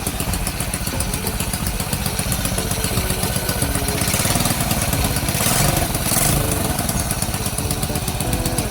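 Honda XRM 110cc single-cylinder four-stroke engine, rebuilt from scrap parts, running steadily just after starting on the first push of the starter. It swells briefly a little past the middle, then settles back.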